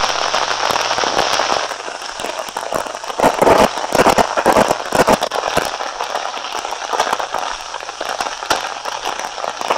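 Crackling and popping surface noise from a worn film print's optical soundtrack: dense, irregular clicks over a steady hiss and a faint low hum, heard during the countdown leader.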